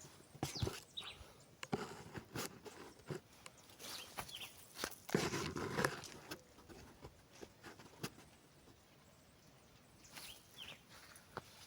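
Wooden sticks being handled and laid onto a stick-pyramid bird trap: scattered light clicks and knocks of wood on wood, with a louder rustling clatter about five seconds in.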